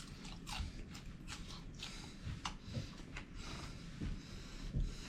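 Close-up chewing of a person eating cooked bluegill: irregular wet smacks and small clicks of the mouth, with a few soft low thumps.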